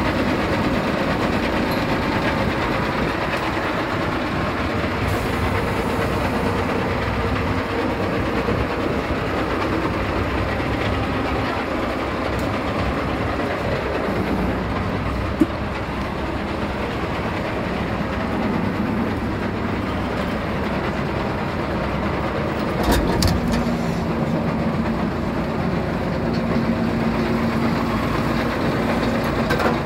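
A machine or engine running steadily, with a sharp click about halfway through and a brief louder clatter near the end.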